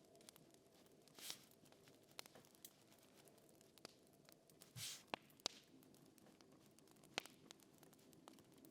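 Faint crackling fire: sparse, irregular sharp pops over a low steady hum, with two short soft rustles about a second and nearly five seconds in.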